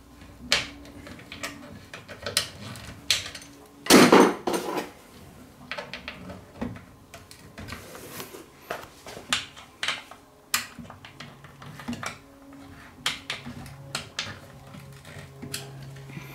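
Allen key turning cap head screws tight into a chair's wooden frame: a run of small metallic clicks and taps as the key is worked and re-seated, with a louder knock about four seconds in and another about ten seconds in.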